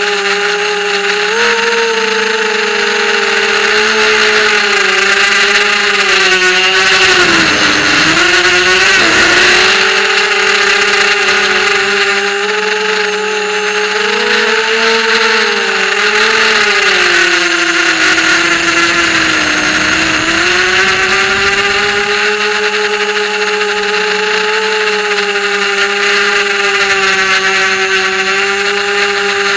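Small FPV racing quadcopter's brushless motors and propellers whining at high pitch, the pitch rising and falling with the throttle, with two marked dips in pitch and swells of noise at about 7 to 9 seconds and again near 20 seconds.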